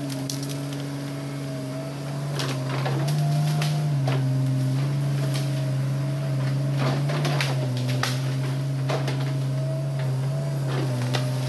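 Hitachi Zaxis 200 excavator's diesel engine running steadily under load, its pitch shifting up and down a few times, with irregular sharp cracks and snaps of breaking branches and brush as it clears through the trees.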